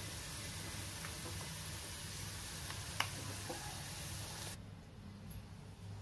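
Oil sizzling in a kadai with garlic cloves, fenugreek and ajwain seeds frying golden brown in it, with one sharp pop about three seconds in. The sizzle cuts off abruptly at about four and a half seconds, leaving a low steady hum.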